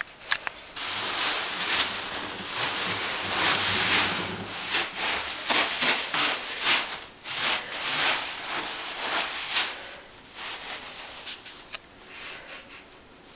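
Small polystyrene foam beads rustling and rubbing against each other as a cat burrows and pushes through them, in a run of quick scratchy rustles that dies down after about ten seconds.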